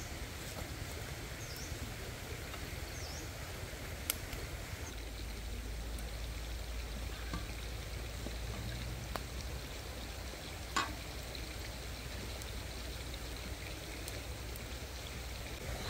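Steady hiss of an open wood fire and outdoor surroundings, with a sharp click about four seconds in and a louder one near eleven seconds, and two short high chirps in the first few seconds.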